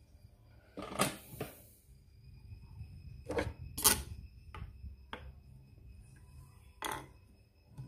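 A few short, sharp clicks and rustles of hands handling thread and parts at an industrial single-needle sewing machine while its needle is threaded. The loudest come about a second in and just before four seconds in. A faint, steady high tone runs underneath.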